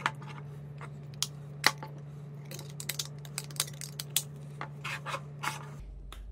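Hard ABS plastic clock-speaker casings being handled: a string of sharp clicks and short scrapes as a unit is picked up, turned over and set down, over a steady low hum that drops lower near the end.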